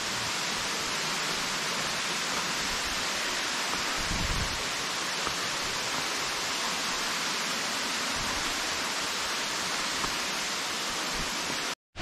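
Waterfall rushing: a steady, even hiss of falling water. There is a brief low bump about four seconds in, and the sound cuts out for an instant near the end.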